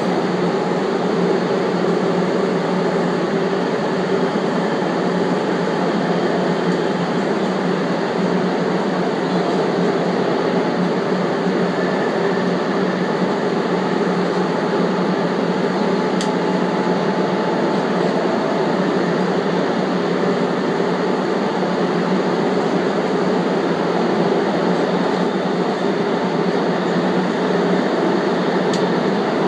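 Subway train running at a steady speed, a constant even rail noise with no let-up and a couple of faint ticks.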